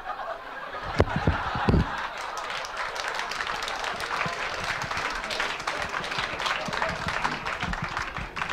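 Live audience applauding, with some laughter. The clapping breaks out about a second in and tails off right at the end, and a few heavy low thumps come just as it begins.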